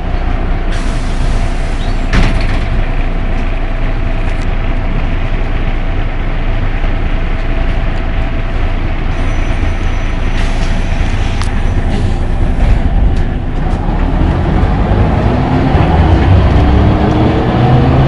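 Ikarus 260 city bus's diesel engine and road noise heard from inside the passenger cabin: a steady loud rumble with a few rattles and clicks. Over the last few seconds the engine note climbs as the bus accelerates.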